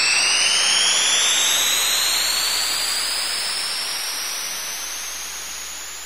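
Synthesized sci-fi spaceship take-off sound effect: a rushing, jet-like hiss under several high whine tones that glide steadily upward, the whole sound fading away from about two seconds in.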